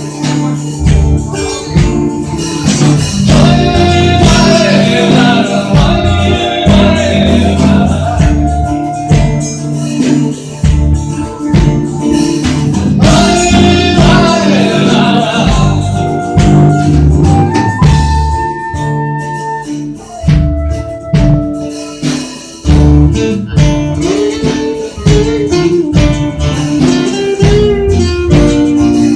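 Live band playing an instrumental break with guitars and percussion: a steady beat under a bending melodic lead line.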